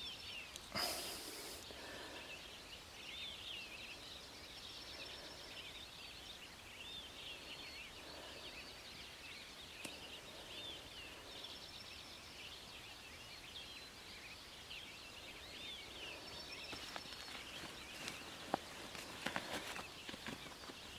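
Quiet dawn birdsong: several small birds repeating short chirping phrases over a faint outdoor hush, with a few light clicks near the end.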